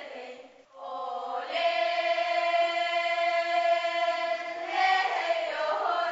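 A group of children singing together in unison: a long held note from about a second in, then the tune moves through a few pitches near the end.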